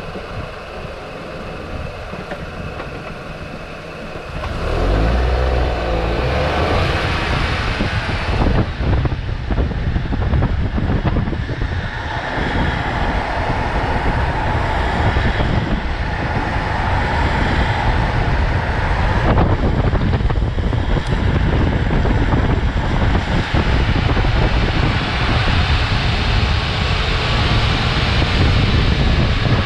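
Wind rushing over the microphone and skateboard wheels rolling on asphalt, quiet at first and then loud from about four seconds in. The noise slowly builds as the downhill run gathers speed to around 60 km/h.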